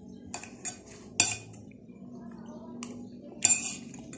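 Metal spoon clinking and scraping against a plate while scooping food, about five sharp strikes; the loudest come about a second in and near the end.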